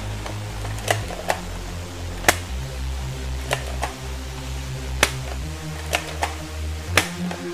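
Background music with a low bass line changing note every second or so, with about a dozen irregular sharp clicks and knocks over it.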